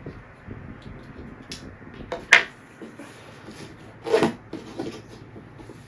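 Cardboard retail box being handled and opened: light rubbing and small taps, with a sharp snap a little over two seconds in and a duller knock a little after four seconds.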